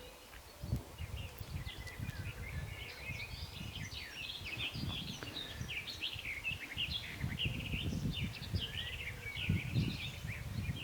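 Several small songbirds singing and chirping together in woodland: a dense chorus of quick, high warbles and chirps starting about a second in. Low, uneven rumbling on the microphone sits beneath it.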